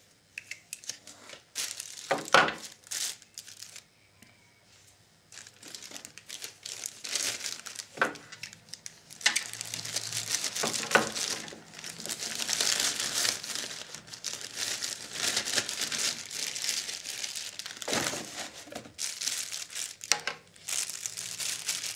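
A few knocks and clatters about two seconds in, then a clear plastic bag crinkling and rustling steadily as it is handled, with an occasional sharp knock.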